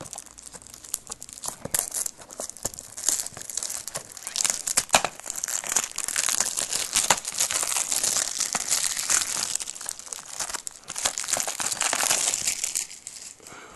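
Clear cellophane shrink-wrap crinkling and tearing as it is pulled off a Blu-ray case: scattered crackles at first, then dense, nearly continuous crinkling through most of the rest.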